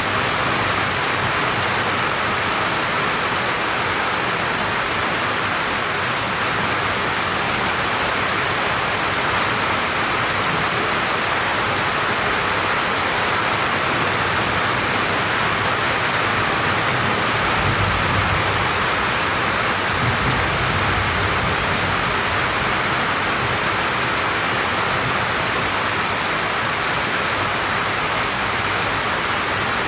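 Steady rain heard from under a roof, falling on the roof and on the surrounding banana and tree leaves. A low rumble rises under it a little past the middle.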